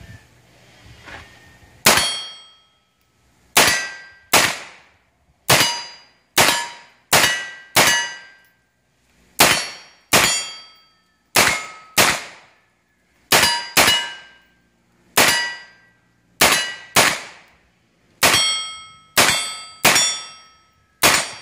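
MKE Z5P 9 mm firing about twenty semi-automatic shots, spaced irregularly half a second to a second and a half apart. Each shot carries a metallic ring that dies away quickly.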